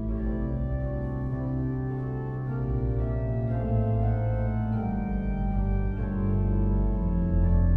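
Pipe organ playing sustained chords over deep bass notes, the harmony changing every second or two.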